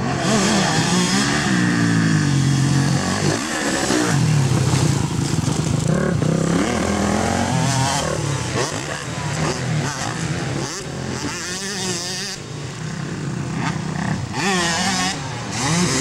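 Several motocross bikes racing, their engines revving up and dropping back again and again. The engine pitch rises and falls repeatedly, with more than one engine overlapping in the second half.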